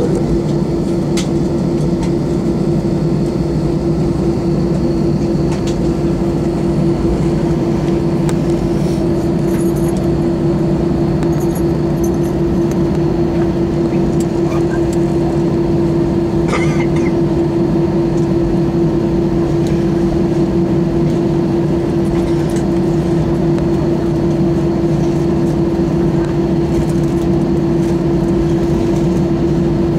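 Steady cabin drone inside an Airbus A321 on the ground before takeoff, its engines running, with a strong constant hum through it and an occasional faint click.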